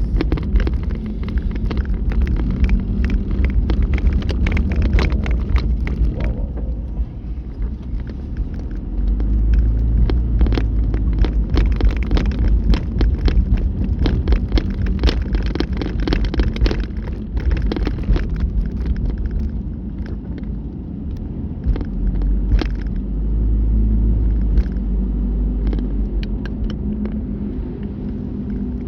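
Car driving in strong typhoon wind, heard from inside the cabin: a continuous heavy low rumble that swells louder twice, about nine seconds in and again past twenty, with many sharp ticks and taps throughout.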